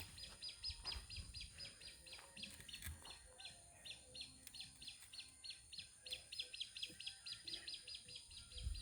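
A bird calling in a fast, even run of short high chirps, about five a second, heard faintly over outdoor background noise.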